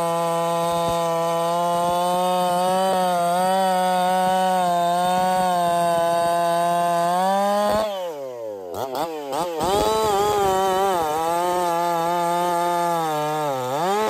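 Echo two-stroke chainsaw with .325 chain cutting through a log at full throttle, the engine holding a steady high pitch under load. About eight seconds in the cut finishes and the throttle drops off, so the engine falls toward idle; it then revs back up, dips briefly as the chain bites into the next cut near the end, and recovers to full throttle.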